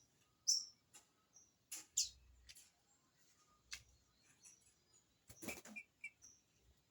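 Green-winged saltator (trinca-ferro) giving short, high chirping call notes at irregular intervals, some falling quickly in pitch. A few sharp clicks and scuffles are mixed in.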